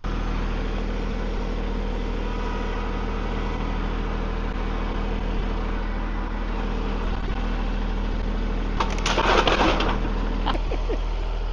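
An engine idling steadily, with a brief noisy clatter about nine seconds in.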